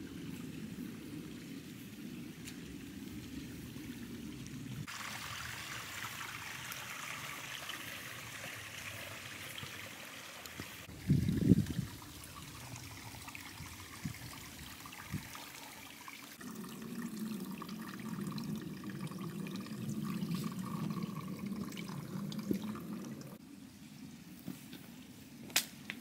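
Shallow mountain stream water trickling over stones, its sound changing abruptly several times. A brief loud low thump comes about eleven seconds in, and a few sharp clicks near the end.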